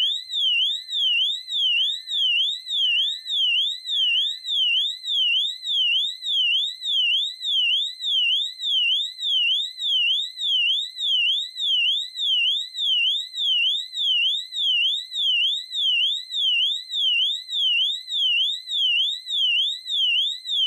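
Wheelock AES-DL1 fire alarm horn sounding its siren tone, the signal for a supervisory condition: a very loud, shrill pitch sweeping up and down about one and a half times a second, without a break.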